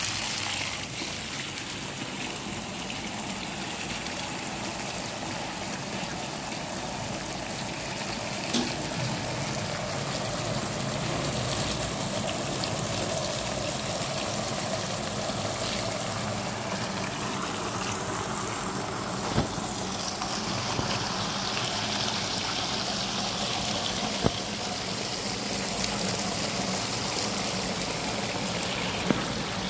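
Water from a hose gushing into a yarn dyeing machine's vessel and splashing over the polyester yarn packages as the machine is filled, a steady rush of water. A few short sharp knocks are heard along the way.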